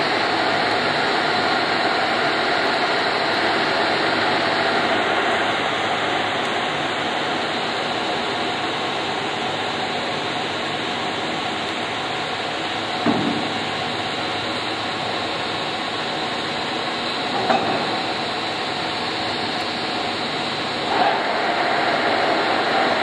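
Leblond Regal heavy-duty gear-head lathe running with its 20 HP main motor and geared headstock making a steady mechanical hum. In the second half there are three sharp clunks as its levers are shifted, and the running sound changes after the last one.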